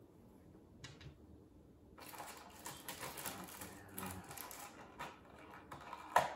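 Clear plastic blister packaging crinkling and clicking as small toy accessories are pried out of it by hand, with a sharp plastic click about six seconds in.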